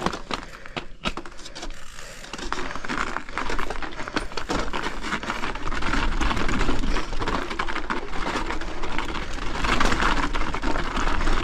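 Mountain bike being ridden over a snowy trail: a dense rattle and rapid clicking from the bike, louder after about two seconds, over a low rumble.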